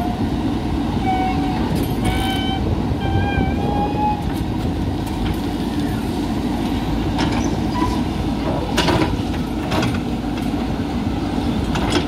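JCB 3DX backhoe loader's diesel engine running steadily under load as the backhoe digs soil. A few short wavering high tones sound in the first few seconds, and several brief knocks come later.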